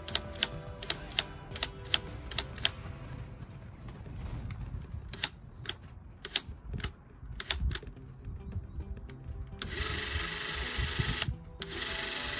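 Pathé Professional Reflex 16 film camera being operated by hand. First comes a quick, even run of mechanical clicks, about three or four a second, then a few scattered clicks. Near the end the camera runs twice, in two short steady bursts of about a second and a half and a second.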